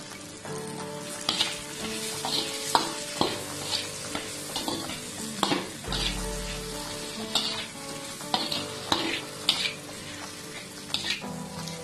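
Metal slotted spatula stirring diced potatoes, onions and chillies in a hot oiled pan, mixing in turmeric. Repeated scrapes and knocks of the spatula against the pan come over a steady sizzle of the frying oil.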